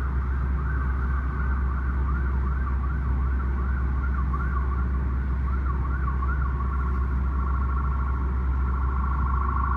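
Emergency vehicle siren wailing up and down in quick cycles, about two a second, switching to a faster warble about seven seconds in, over a steady low rumble.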